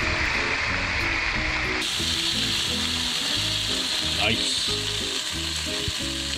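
Pink snapper fillets, frame and wings sizzling on a hot barbecue grill, a steady hiss while flames flare up from the wings. The hiss shifts higher about two seconds in.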